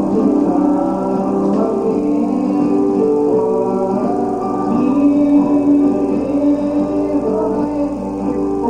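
Gospel music with a group singing over guitar accompaniment.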